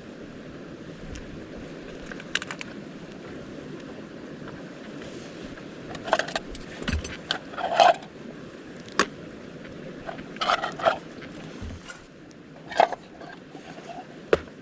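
Metal gear clinking and clattering in several short bursts, over a steady low rush of wind.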